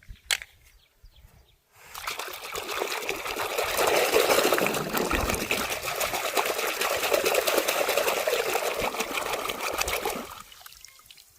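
Water running or pouring steadily for about eight seconds, starting about two seconds in and tailing off near the end, as in washing toys. A short sharp click comes just before it.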